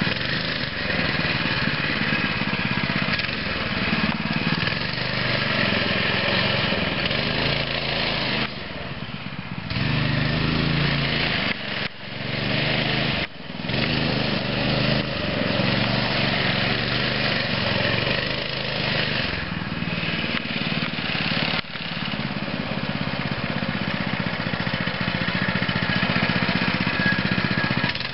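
The 6.5 HP four-stroke single-cylinder engine of a Hammerhead 80T go-kart running steadily as the kart is driven, with its level dipping briefly a few times in the middle.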